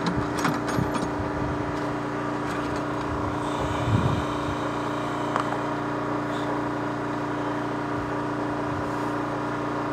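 A steady engine hum, with a few light clicks in the first second and a soft thump about four seconds in.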